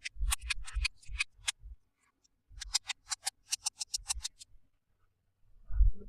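Quick runs of sharp clicks and taps, about five a second, from hands handling toy packaging, followed by a low thud near the end.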